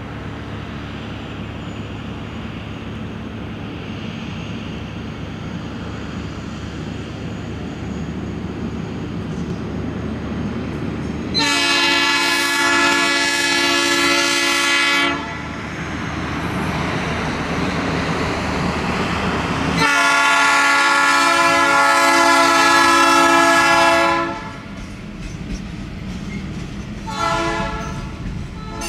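Hi-rail maintenance-of-way truck pulling a string of loaded railcars: a low engine and rolling rumble grows louder as it approaches. Then its multi-tone air horn sounds two long blasts and a short one, the start of the long-long-short-long grade-crossing signal.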